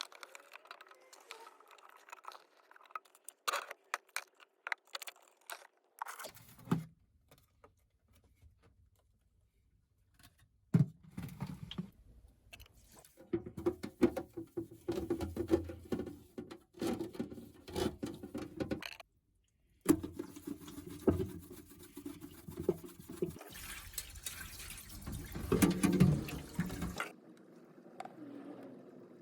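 Water and handling noises in several short cut-together stretches: clicks and knocks with spells of running or splashing water.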